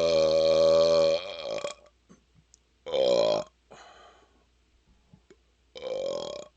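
A man burping up swallowed air on command: a long, steady-pitched burp that ends about a second and a half in, then two short burps, one about three seconds in and one at the very end.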